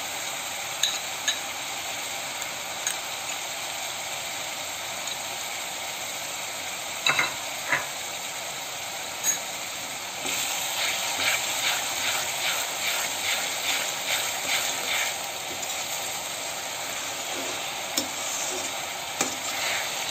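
Chopped onions and ginger-garlic paste sizzling steadily in hot mustard oil in a kadhai, with a spatula scraping and clicking against the pan. From about ten to fifteen seconds in comes a run of quick stirring strokes, two or three a second.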